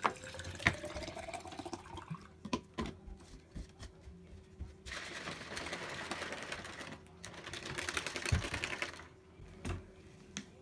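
Water poured from a plastic bottle into a plastic shaker cup, the pitch rising as the cup fills. A few clicks as the lid is snapped on, then the shaker cup is shaken hard in two bouts of rapid shaking, the liquid sloshing inside.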